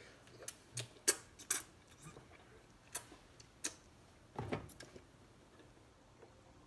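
Irregular sharp finger snaps, about eight in six seconds, with a short breathy sound about four and a half seconds in.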